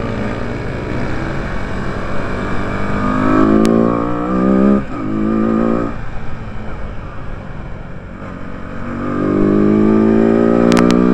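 150 cc bucket race motorcycle's engine heard onboard on a track: revs climb under acceleration and hold high, with a brief dip about five seconds in. The throttle closes off around six seconds, then the revs build again from about nine seconds and stay high to the end.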